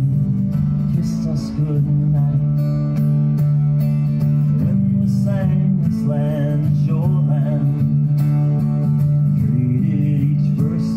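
Acoustic guitar strummed steadily as song accompaniment, with a man's singing voice over it in places.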